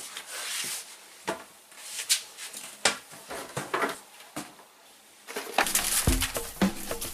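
Scattered sharp clicks and light knocks, then music with a steady beat and deep bass starting near the end.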